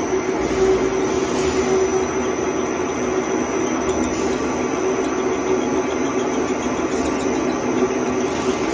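ALCK6150x3000 CNC lathe running, with a steady mechanical whir and a constant hum from the spindle drive.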